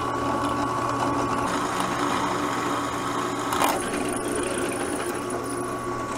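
Belt-driven drill press running at about 1,500 RPM with a steady motor hum and whine as a 1/8-inch bit drills into steel bar. There is a short, harsher burst of cutting noise a little past halfway.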